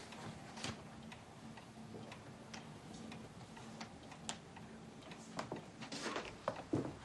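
Faint, sparse ticks and small clicks at uneven intervals over a faint steady low hum, growing a little busier near the end.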